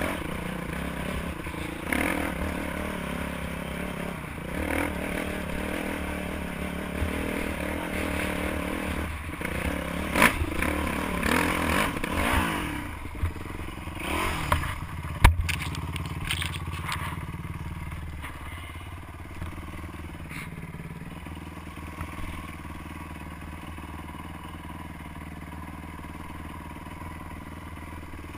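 Dirt bike engine revving hard on a steep off-road climb, with scraping, clattering and a sharp knock about halfway through. The engine then settles to a steady, quieter idle.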